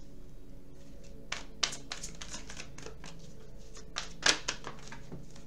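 Tarot cards being handled: a scattered run of short clicks and rustles, the loudest a little past four seconds in, over a faint steady hum.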